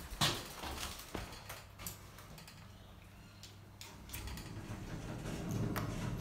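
Passenger lift: a few sharp clicks and knocks in the steel car, then about four seconds in a low mechanical hum from the lift machinery starts up and grows louder.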